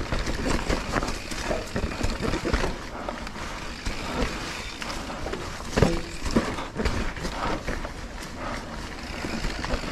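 Mountain bike being ridden over a rough trail: irregular rattling and clunking of the bike over a steady low rumble, with a sharper knock about six seconds in.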